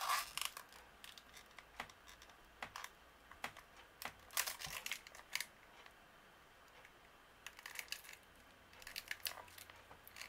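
Blue protective plastic film being picked at and peeled off a nail stamping plate by fingers: faint, scattered crinkles and small clicks with short pauses between.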